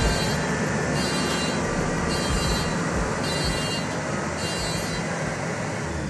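Maxxi Bimo 102 combine harvester running steadily, its engine and machinery making a dense, continuous rumbling noise.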